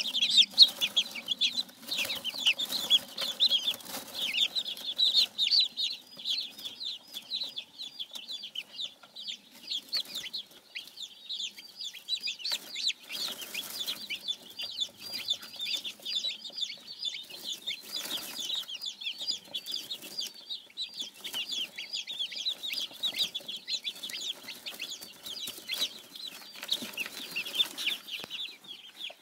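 A brood of baby silkie chicks peeping without pause, many short high-pitched cheeps overlapping one another.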